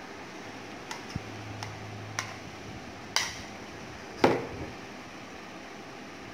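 Kitchen utensils being handled and set down: a few light clicks and knocks, the loudest about four seconds in, over a steady background hiss.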